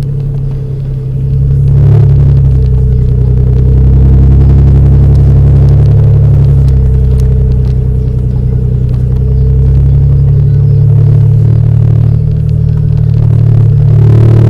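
Engine and road rumble of an off-road vehicle driving over a dirt and gravel trail, heard from inside the cab: a steady low drone that eases briefly near the start and again about twelve seconds in.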